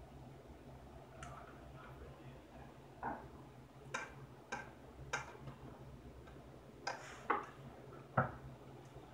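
Metal utensil clinking and scraping against the inside of an opened tin can, about eight sharp clinks at uneven intervals over a faint steady hum.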